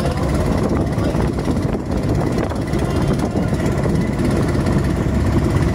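Steady, loud drone of boat engines underway, mixed with the rush of water.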